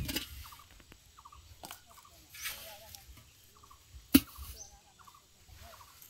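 Short animal calls repeating every second or so, with one sharp click about four seconds in.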